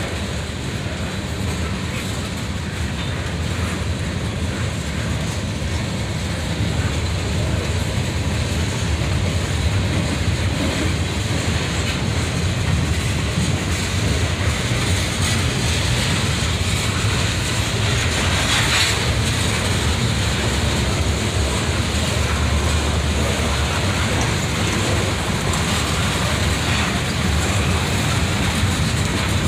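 Freight train rolling past close by: boxcars, covered hoppers and tank cars, their steel wheels making a steady low rumble on the rails that grows a little louder over the first several seconds.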